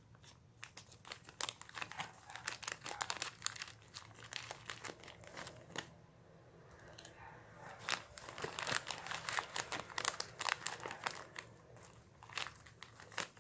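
Homemade clear slime being squished, stretched and pressed by hand, giving off rapid sticky clicks and crackling pops. It comes in two busy stretches with a quieter pause about halfway through.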